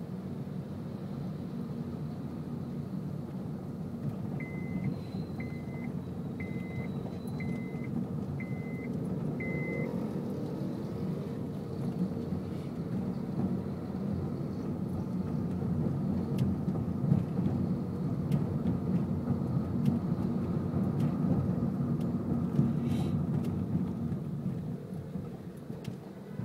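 Cabin noise of a 2006 Honda Civic driving slowly in stop-and-go traffic: a steady low rumble of engine and tyres. A short high beep sounds six times, about once a second, a few seconds in.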